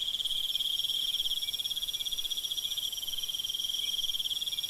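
Crickets chirping in a steady, fast-pulsing high trill.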